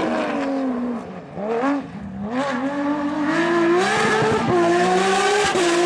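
Porsche 997 GT3 RS Cup's flat-six engine at rally pace. The note falls at first and fades briefly about a second in, then climbs again through several quick upshifts and holds at high revs.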